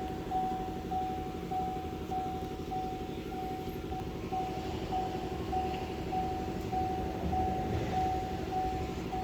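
A steady low mechanical hum with a high electronic beep repeating evenly, about one and a half times a second.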